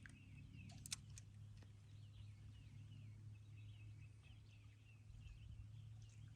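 Faint birdsong: a long run of quick, wavering chirps, over a steady low hum and a single light click about a second in.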